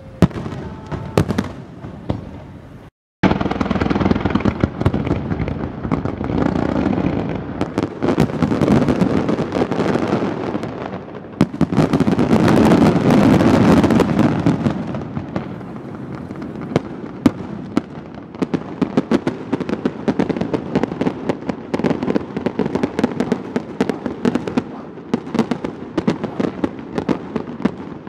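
Fireworks display: a dense barrage of shells bursting and crackling, the many reports overlapping into a continuous rumble that is loudest about halfway through. The sound cuts out for an instant about three seconds in.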